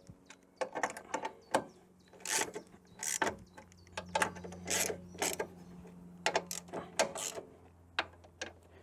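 Ratchet wrench being worked back and forth on a bolt, clicking in short irregular bursts with each return stroke.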